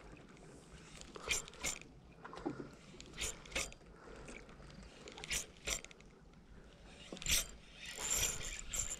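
Spinning rod and reel worked in a twitching retrieve: pairs of short clicks about every two seconds. Near the end a fish takes the lure and the sound turns into a steady buzzing hiss with a high whine, line pulling off the reel's drag.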